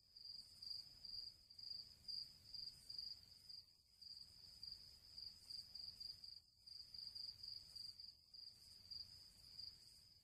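Faint insect chirping: one steady high-pitched trill pulsing a few times a second, over a faint low hum.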